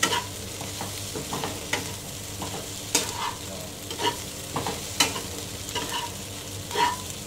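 A metal spatula scraping and clinking against a wok as chicken pieces are stirred, over the steady sizzle of frying oil. The strokes come irregularly, about once a second, some leaving a short metallic ring.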